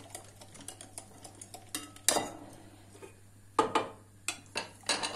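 Wire whisk stirring a yogurt, egg and flour mixture in a glass bowl, then several sharp metal clinks of a ladle and whisk against the pot and bowl, the loudest about two seconds in. The hot broth is being worked in a little at a time so the mixture does not form lumps.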